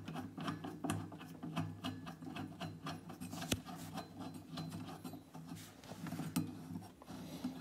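Irregular small clicks and rubbing from hands working at the central bolt of a washing-machine drum's metal spider.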